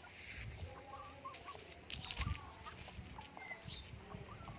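Shamo Aseel chickens clucking softly in short, repeated calls, with scattered sharp clicks among them.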